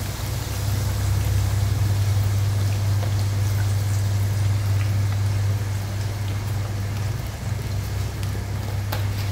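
Pork adobo simmering in a wok, a faint crackling sizzle of bubbling liquid, over a steady low hum.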